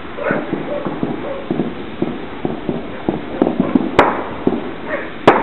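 Rapid, uneven string of gunshot pops, several a second, with two loud sharp bangs about four and five seconds in, and a dog barking.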